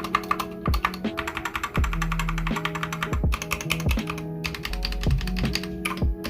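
Rapid typing on a Gamakay MK61 mechanical keyboard with Gateron Optical Yellow switches and PBT pudding keycaps: a dense run of key clicks. Background music with a deep bass beat plays under it.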